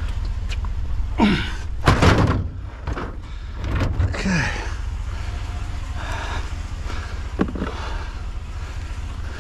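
Knocks and clunks of a metal washer or dryer being handled and worked on to strip its cord, several sudden hits with the loudest about two seconds in, over a steady low rumble.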